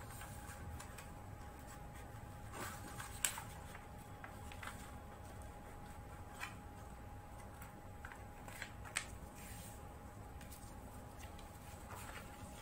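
Faint rustles and light taps of a sheet of paper being folded in half and creased by hand, a few brief ones standing out about three seconds and about nine seconds in, over a faint steady hum.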